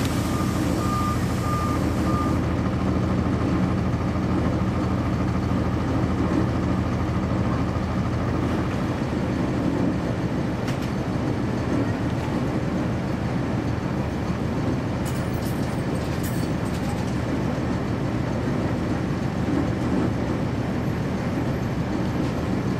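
Cummins ISC inline-six diesel of a 1999 NovaBus RTS transit bus running steadily, heard from on board. A repeated beeping alarm sounds over it for the first couple of seconds, and the low engine drone eases off about eight seconds in.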